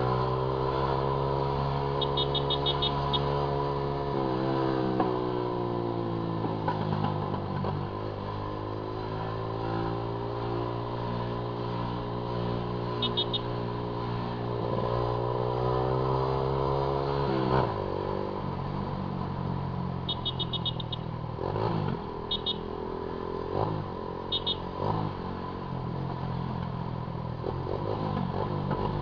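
Honda Titan 150 motorcycle's single-cylinder four-stroke engine running under way, its pitch rising and easing off in long sweeps as the revs change. From about 18 s in it runs lower and more unevenly.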